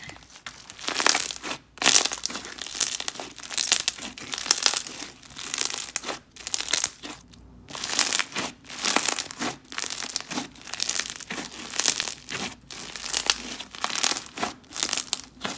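Purple snow fizz slushy slime being stretched and squeezed by hand, crunching and crackling as its bubbles pop, in irregular bursts with brief pauses.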